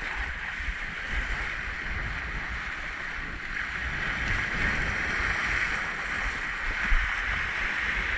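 Surf washing over rocks, with wind buffeting the microphone in low, uneven gusts.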